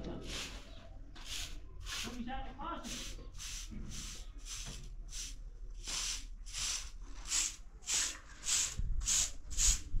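Rhythmic swishing, rubbing strokes, about two a second, growing louder in the second half.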